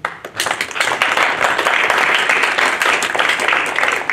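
Audience applauding, breaking out all at once into many overlapping claps and keeping up steadily.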